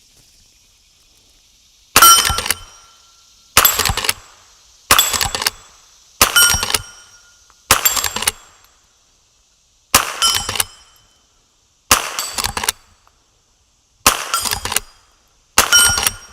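Henry Frontier lever-action rifle in .22 LR firing nine single shots, about one every one and a half to two seconds, each with a short ringing tail.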